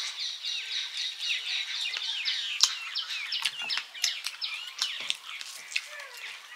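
Many small birds chirping together in a dense chorus of short, rapidly repeated chirps, with a few sharp clicks over it, the loudest a little over two and a half seconds in.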